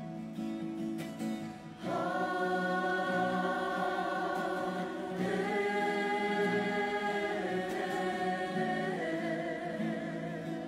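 A waiata tira (Māori choir) singing in harmony over guitar. Strummed guitar is heard first; the full choir comes in loudly about two seconds in, holding long chords that change every couple of seconds, and eases off near the end.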